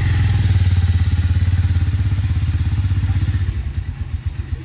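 Road Prince Robinson 150cc motorcycle's single-cylinder engine idling through its original stock exhaust, a steady low putter. It gets quieter about three and a half seconds in.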